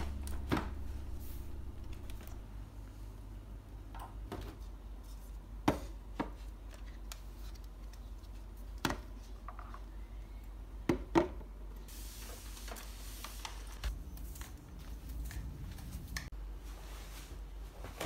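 Household tidying noises in a small room: scattered light knocks and taps of objects being handled and set down, with a pair of sharper taps about two-thirds through and a brief rustle just after them.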